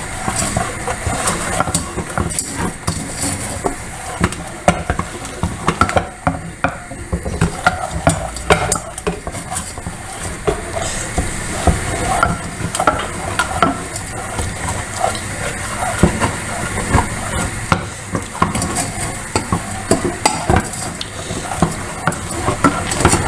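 A spoon stirring and scraping in a pan of caramelising sugar with apple and sage, clicking irregularly against the pan, over a low sizzle from the cooking. The sugar is caramelising but is not yet dark enough.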